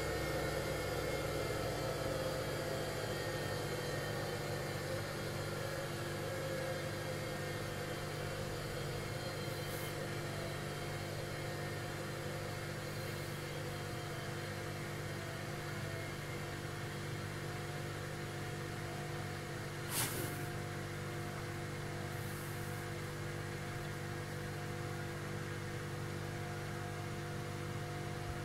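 Small micro disc sander built from an old hard disk drive, its spindle motor turning the sanding disc with a steady whir and hum; one tone slides down in pitch over the first few seconds before it settles. A single sharp click about twenty seconds in.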